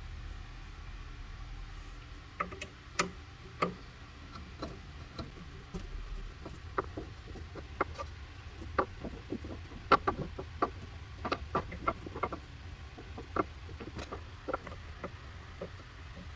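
Irregular light clicks and taps, as of parts and packaging being handled, over a low steady hum. The clicks begin about two seconds in and come in uneven clusters, loudest around the middle.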